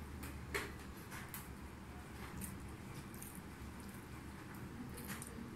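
Quiet sounds of eating rice and curry by hand: fingers squishing and mixing rice on plates, with a few short sharp clicks, the loudest about half a second in, over a low background hum.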